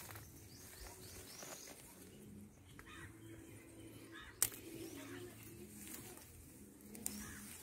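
Faint leaf rustling as moringa sprigs are pulled by hand, with a sharp snap of a stem a little over four seconds in. Faint bird calls sound in the background.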